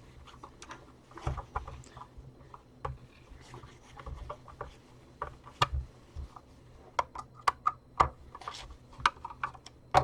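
Plastic housing of a handheld vacuum being worked on with a hand screwdriver: irregular small clicks, taps and light scrapes of metal and fingers on plastic as the case screws are undone.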